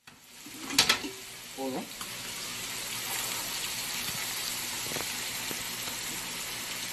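Plantain slices deep-frying in hot oil with a steady sizzling hiss, as the slices are stirred in the pan. A sharp clink near the start is the loudest moment.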